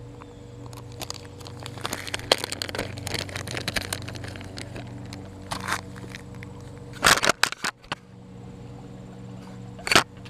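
A plastic bag of soft-plastic lizard baits being handled, crackling and crinkling, with louder crinkles about seven seconds in and again near the end. A steady low hum runs underneath.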